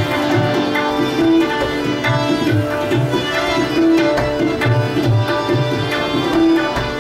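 Tabla playing a steady rhythm, deep bass-drum strokes under sharp treble strokes, over sustained held melodic notes and a drone: an instrumental passage of Indian classical music.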